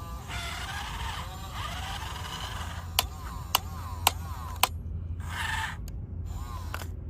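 Remote-control toy JCB excavator's small electric motors and plastic gears whirring, the whine gliding up and down, then four sharp clicks about half a second apart and a short whir near the end.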